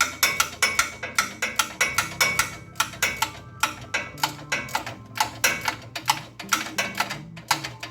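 Background music with a steady percussive beat of sharp clicks over a stepping bass line.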